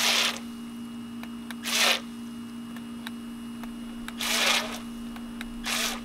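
Syma remote-control jet ski's twin motors driven in four short bursts, each a brief hiss of churned water in the pool, over a steady low hum.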